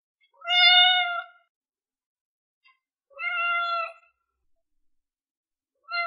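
Domestic cat meowing three times, each meow about a second long and held at a steady pitch, with silence between them; the third starts near the end.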